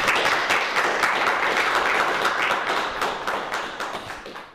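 Audience applauding: dense, steady clapping that dies away towards the end.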